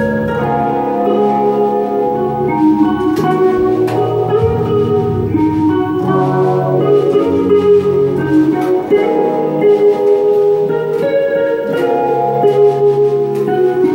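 Live rock band playing an instrumental passage: two electric guitars holding ringing chords over electric bass and drum kit, with no vocals.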